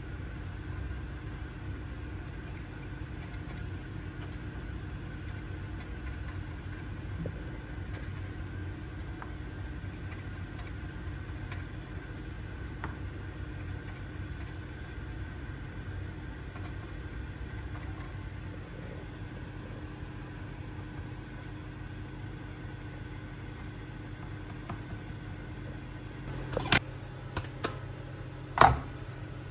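A steady low kitchen hum runs throughout, with a few faint taps of a fork pricking thin naan dough against a stone worktop. Near the end come two sharp knocks a couple of seconds apart.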